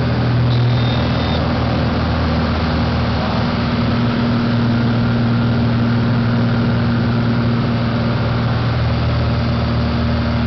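Light aircraft's piston engine and propeller running at a steady drone, heard from inside the cockpit.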